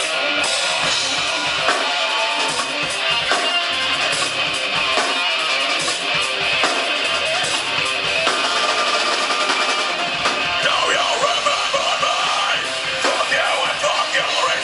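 A rock band playing a guitar-driven song live.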